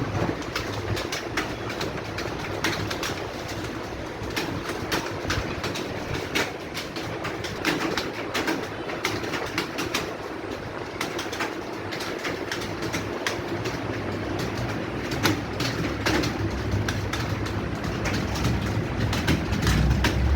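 Many computer keyboards being typed on at once: a dense, continuous clatter of keystrokes.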